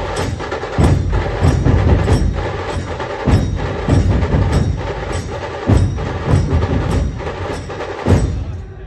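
Dhol-tasha ensemble drumming: heavy dhol strokes in a steady beat a little under twice a second, under fast continuous tasha rolls. The playing stops just before the end.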